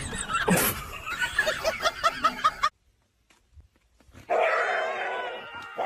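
A small dog yapping in quick short barks, about four or five a second, which stop abruptly. After a moment of silence, a cat's long, drawn-out yowl begins near the end.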